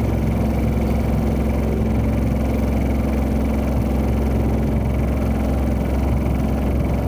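Honda Odyssey Hybrid RC4 driving, heard from inside the cabin through a dashcam: a steady low drone and hum. The owner takes the noise for a recurring front-end shimmy vibration.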